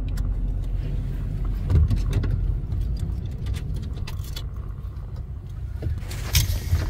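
Steady low rumble of engine and road noise heard inside a moving vehicle's cab, with scattered light clicks and rattles.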